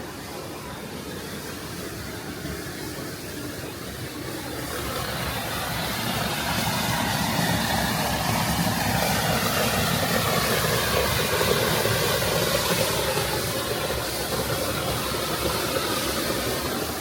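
Steady rushing roar of Düden Waterfall's falling water, growing louder over the first several seconds and then holding.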